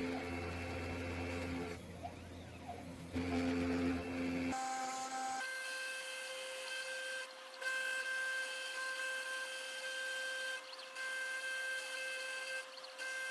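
Small electric motors of a home-built CNC saw machine running. A low hum lasts for the first four seconds or so, then a steady higher whine of several fixed tones takes over and breaks off briefly a few times.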